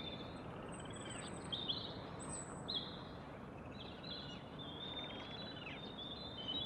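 Small birds chirping over a steady background hiss: many short, high chirps, a few of them falling in pitch.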